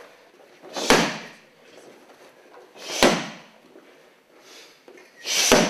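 Three heavy strikes landing on a handheld padded karate strike pad, about two seconds apart, each a sharp slap-thud.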